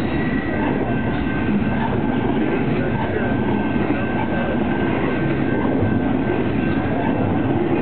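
Double-stack container freight train rolling past close by: the steady, loud rumble of its flatcars' steel wheels on the rails, with a thin steady high tone running through it.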